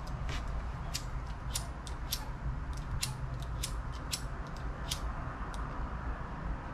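Irregular light clicks and ticks as a small metal swivel and crimp sleeve are handled and threaded onto heavy monofilament leader, over a low steady background rumble.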